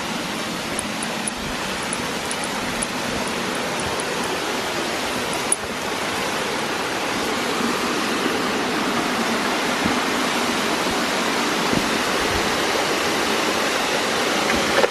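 Steady rush of flowing water from a bush stream or river, growing slightly louder.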